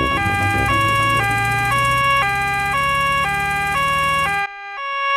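Cartoon two-tone emergency siren, alternating high and low notes about once a second each (nee-naw), over a low vehicle rumble. The rumble cuts out about four and a half seconds in, as the siren breaks off briefly and then sounds once more.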